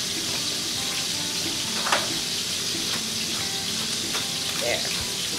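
Chicken thigh fillets sizzling steadily as they sear skin side down in butter and olive oil in a hot enamelled cast-iron pan, crisping the skin. A couple of short sharp pops stand out, about two seconds in and again near the end.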